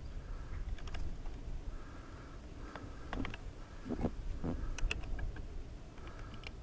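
Small metallic clicks and taps of an 8 mm spanner on the front brake's cable clamp nut as it is tightened to take up slack in the brake cable, over a low rumble of wind on the microphone.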